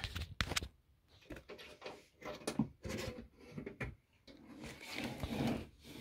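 The key lock on a Fire-Lite MS-2 fire alarm control panel's metal cabinet door clicks sharply several times as the key is worked. About four seconds in comes a longer stretch of rubbing and scraping as the door is swung open.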